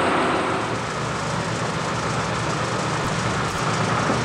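Steady construction machinery running: a low engine-like hum under a broad rushing noise, easing slightly about a second in.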